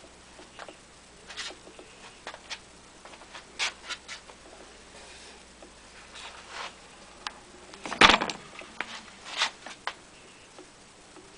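Homemade weight-rotation test rig with a wooden arm on a steel shaft and a chain-and-sprocket drive, turning with irregular light clicks and taps, and one louder knock about eight seconds in.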